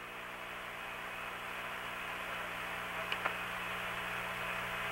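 Steady hiss of an open air-to-ground radio channel from the Apollo 8 mission, with a low steady hum under it and a couple of faint clicks a little after three seconds in.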